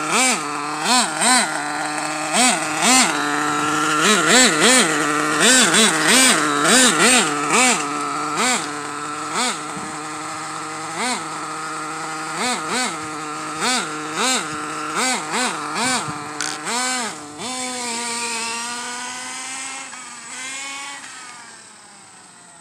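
Ofna nitro RC truck's small two-stroke glow engine revving in quick throttle blips, its pitch rising and falling over and over, then running steadier and fading as the truck drives away near the end.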